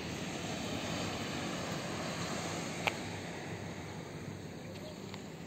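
Steady rushing wind on the phone microphone, with one short sharp click about three seconds in.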